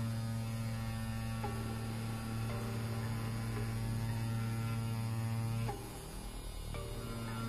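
Rocket Pen V1 rotary tattoo pen running at about 9.9 volts, a steady electric hum as the needle works into synthetic practice skin. The hum drops away and changes briefly about three-quarters of the way through, then picks back up.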